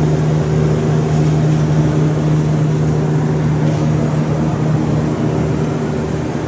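A steady, loud mechanical drone with a low hum, running evenly without change.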